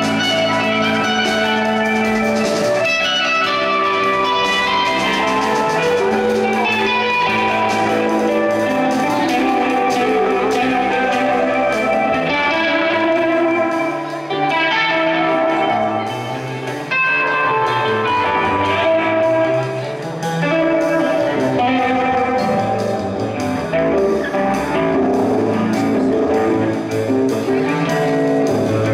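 Rock band playing live, with electric guitars to the fore over bass and drums.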